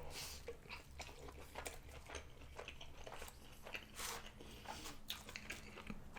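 Chewing of a steak and cheese grinder sandwich: faint, irregular wet mouth clicks and soft crunches, with a couple of slightly louder ones near the start and about four seconds in.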